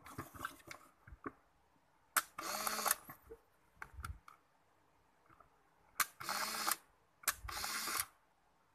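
Konica K77 compact 35 mm film camera firing three times: each time a sharp shutter click followed by its small motor whirring for under a second as it advances the film. The last two come close together, with small handling clicks between.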